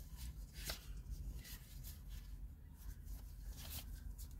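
A deck of tarot cards being shuffled and handled: faint, scattered papery rustles and flicks, over a low steady hum.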